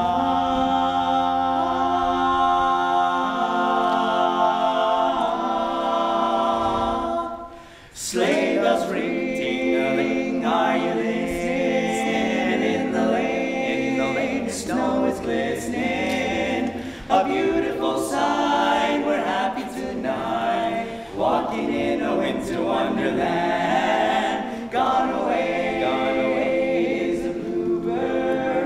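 Male vocal quartet singing a cappella in close harmony: a long held chord, a short break about seven seconds in, then a livelier rhythmic passage with sharp clicks between the sung phrases.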